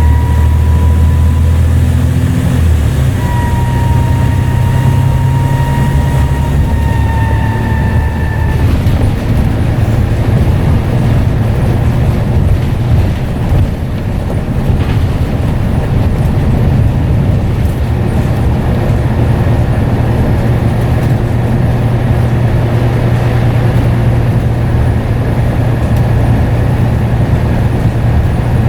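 Scania N94UD double-decker bus under way, its engine running with a turbo whistle: a held whistling tone that breaks off briefly, rises slightly and fades out about eight seconds in. After that the engine hum and road rumble carry on steadily.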